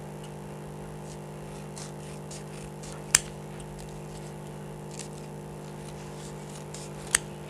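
Crepe paper crinkling faintly as it is folded by hand. Two sharp clicks sound about three and seven seconds in, over a steady low hum.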